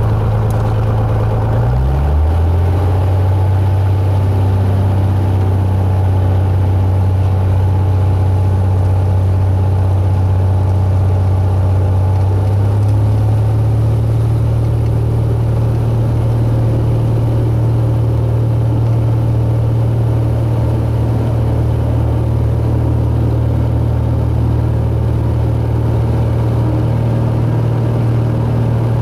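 Cessna 172's piston engine and propeller running steadily, heard inside the cabin. The hum drops in pitch about two seconds in and rises a little about thirteen seconds in.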